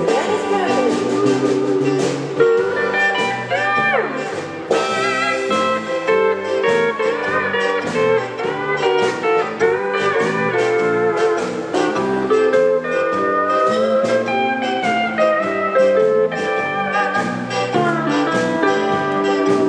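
Live band music: electric guitars and bass over a steady drum beat, with some guitar notes bending in pitch.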